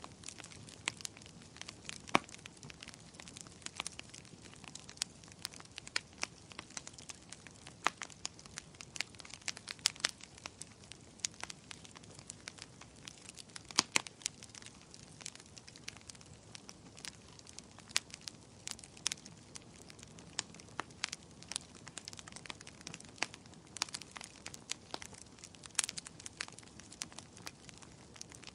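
Wood fire burning, with a steady hiss and irregular sharp crackles and pops, a few much louder than the rest.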